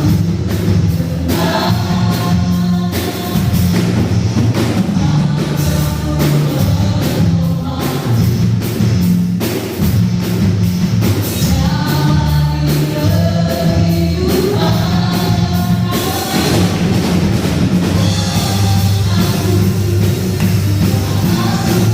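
A worship band with singers performing a contemporary Christian worship song: voices singing the melody over bass, drums and other instruments.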